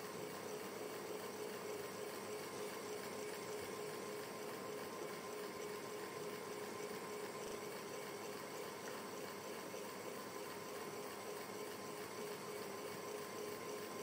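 Ceiling fan running steadily: a soft, continuous rush of air with a faint, steady hum.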